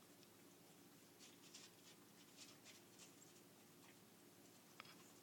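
Near silence, with a few faint, soft clicks scattered through it from two cats eating snacks from a dish.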